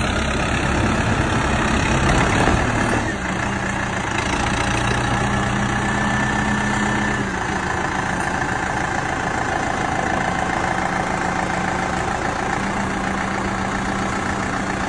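Engine of a snowplowing vehicle running steadily, its pitch stepping to a new speed about three seconds in and again about seven seconds in.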